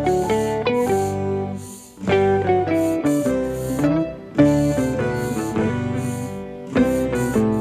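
Background music: a plucked guitar melody over a light, regular percussion beat.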